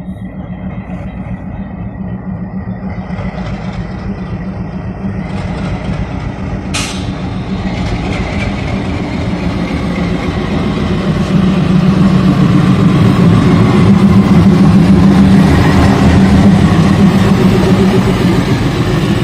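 WDM-3A diesel locomotive's ALCO engine running as the locomotive, uncoupled from its train for a run-round, approaches slowly and passes close by. The engine sound grows steadily louder, loudest in the second half.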